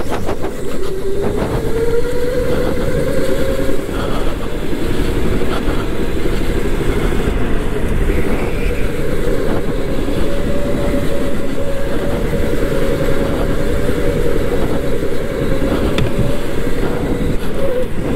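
Electric go-kart motor whining, its pitch following the kart's speed: it dips and climbs again about a second in and once more near the end. Under it runs a steady rumble and rattle of the kart on the track.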